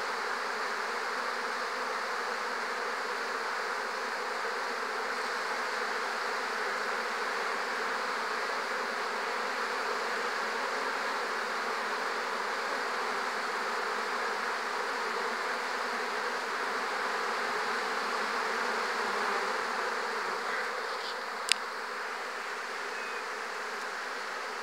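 Steady buzzing of many honeybees flying in and out of the entrances of wooden hives: busy foraging traffic. One sharp click a few seconds before the end.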